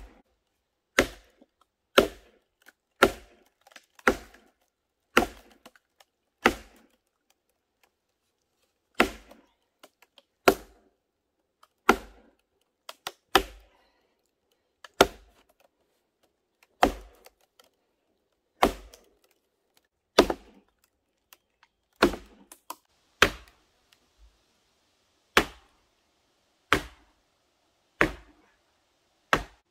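Sledgehammer blows on a steel wedge driven into the end of a log to split it. Sharp strikes come about every second to second and a half, with a brief pause about a quarter of the way in.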